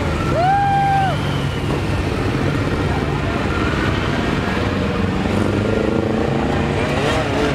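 A stream of motorcycles riding past in a procession, many engines running together as a continuous low drone. A brief held tone stands out over it about half a second in.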